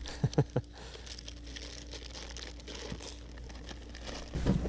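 Plastic bags of soft-plastic fishing baits crinkling irregularly as they are handled and sorted through.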